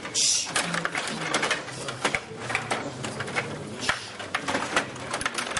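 Stiga table hockey game in play: a rapid, irregular run of plastic clicks and rattles as the players are spun and slid on their rods and the puck is struck.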